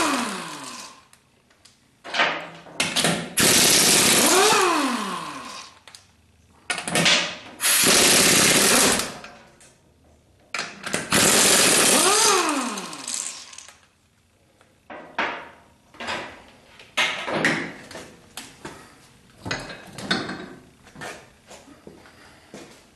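Air impact wrench hammering lug nuts loose on a car's rear wheel in four bursts of a second or two each, its motor whine falling away after several of them. In the second half, clinks and knocks as the loosened nuts and the wheel are handled and the wheel comes off the hub.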